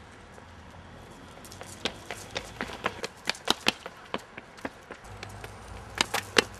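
Footsteps of a man in hard-soled shoes running on a concrete sidewalk: quick sharp taps, about three or four a second, starting about two seconds in, with a few louder steps near the end.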